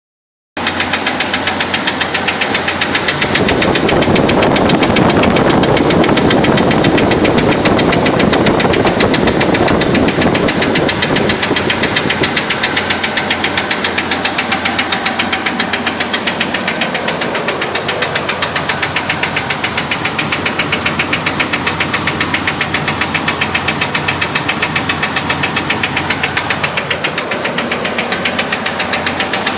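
2000 Jeep Wrangler engine running with a steady, rapid knock, the sound the owner records to show the engine knocking. It is louder from about three to ten seconds in.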